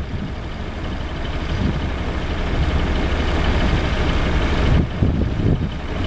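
Case IH 8010 combine harvester running steadily under load while harvesting barley. Wind gusts on the microphone about five seconds in.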